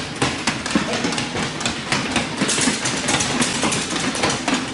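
Quick footfalls of sprinters running a mini-hurdle drill on a synthetic indoor track, several sharp steps a second, with more than one runner's steps overlapping.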